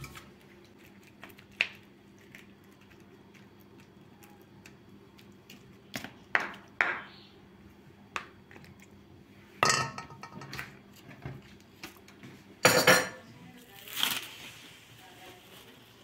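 A ladle clinks and knocks against a glass baking dish and a steel pot, as scattered single knocks with quiet between them. The loudest come about two-thirds of the way in and a little after.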